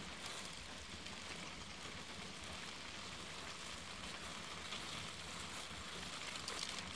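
Faint, steady hiss of outdoor field noise.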